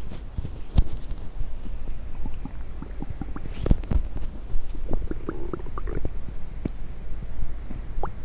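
A person's stomach and bowels gurgling after drinking coffee and Diet Coke: an irregular run of small pops and squelches. The loudest pops come a little under a second in and around four seconds in, with a longer watery gurgle a little after the middle.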